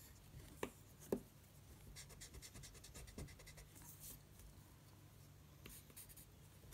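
Pencil scratching faintly on drawing paper in short strokes, with two light taps about half a second apart near the start.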